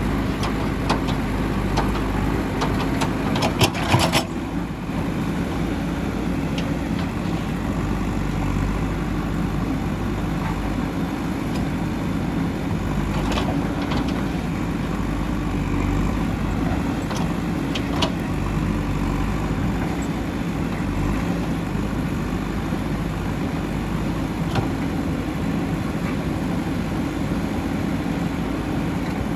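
JCB 3DX backhoe loader's diesel engine running steadily under work, with occasional sharp metallic knocks, a cluster of them about four seconds in.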